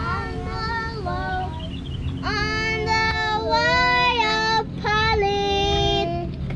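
A young girl singing in phrases of held, sliding notes, louder from about two seconds in, over a steady low background rumble.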